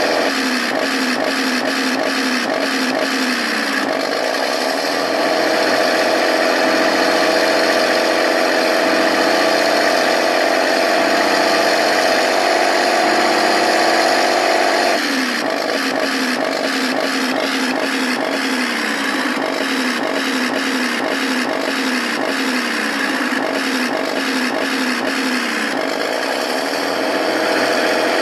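Remote-control tank's TK60-class sound unit playing a tank engine sound effect through its small speaker. The engine note pulses at about two beats a second at first, changes to a steadier, slowly rising drone for about ten seconds, then goes back to the pulsing note.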